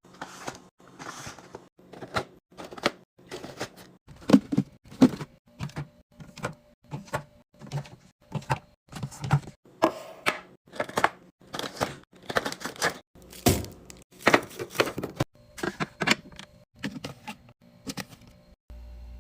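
Packaged food and drink containers being set down and slotted into a fridge, giving a run of light knocks, clicks and clinks, about one or two a second.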